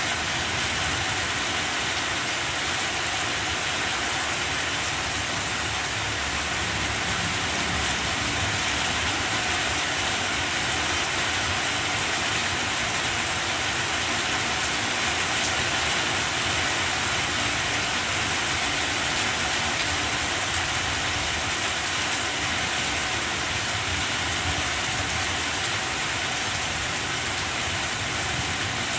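Heavy rain falling steadily on banana plants: an even, unbroken hiss that neither builds nor eases.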